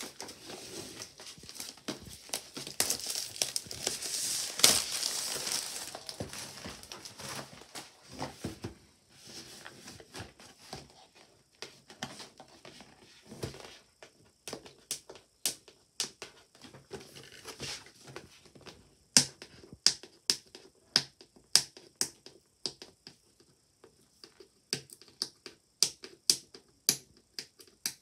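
Thin clear plastic wrap crinkling as it is pulled off a cardboard box, then, about halfway through, a run of separate sharp clicks and ticks as fingers pick and tap at the cardboard box to open it.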